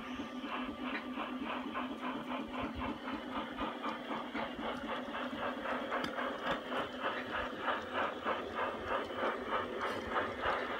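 Model steam locomotive on a garden railway chuffing steadily at about three beats a second, growing louder as it comes closer, over a steady low hum.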